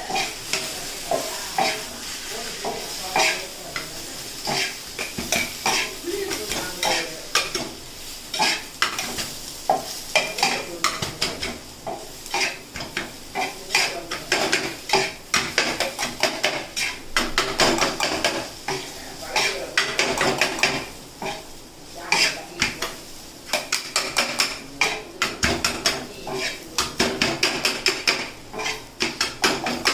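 Steel spatulas chopping and turning kuttu parotta on a hot griddle: a fast, irregular run of metal clanks, several a second, over a steady sizzle, with a brief lull a little past the middle.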